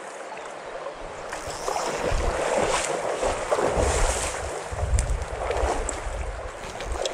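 Wind buffeting the microphone in irregular low rumbles, over the sloshing and splashing of water in a shallow stony river.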